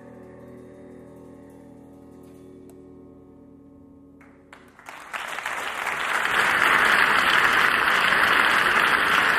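A sustained chord rings and fades out, then audience applause breaks out about five seconds in and swells to a steady, loud clapping.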